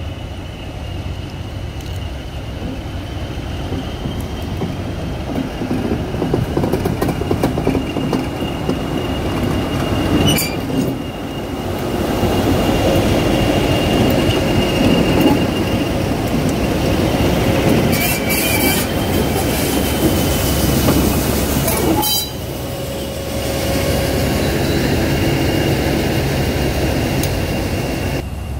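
English Electric Class 20 diesel locomotives running past close by: a heavy engine throb with a steady high whistle on top, loudest in the middle as the locomotives pass. The sound jumps abruptly three times where one pass is cut to the next.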